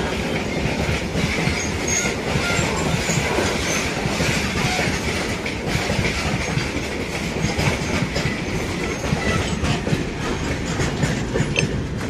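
A train running past on a nearby track: steady noise of steel wheels on rail with many quick clacks over the rail joints.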